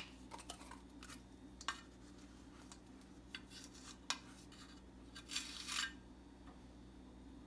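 Faint clicks and scrapes of a kitchen utensil against a mixing bowl as ingredients go into the batter, with a brief scraping rush about five and a half seconds in, over a steady low hum.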